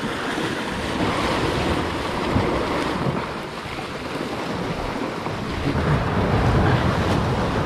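Sea surf washing on a rocky shore, a steady rushing noise, with wind rumbling on the microphone.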